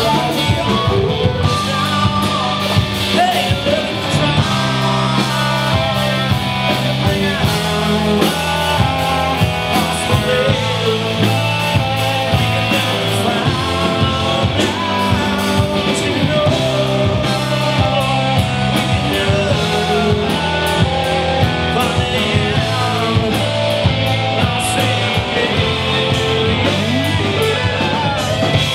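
A rock band playing live: two electric guitars, a bass guitar and a drum kit, loud and steady throughout.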